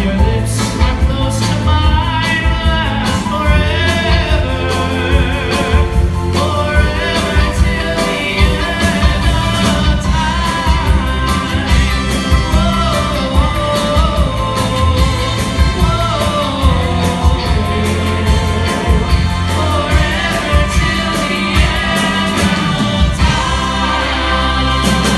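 A doo-wop vocal group sings in close harmony over a rock and roll band with a steady beat.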